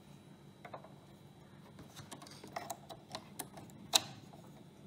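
Light plastic-on-metal clicks and taps as the bobbin case of a Brother Innovis 900D sewing machine is handled and set into its hook race, with one sharper click about four seconds in as it seats.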